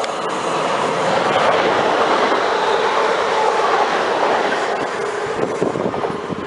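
London Midland Class 350 electric multiple unit running past on the rails: a steady rush of wheel and rail noise that swells over the first couple of seconds, holds, then eases near the end.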